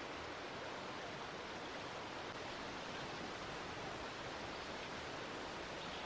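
Steady, even hiss of outdoor background noise, with no bird calls or other distinct sounds.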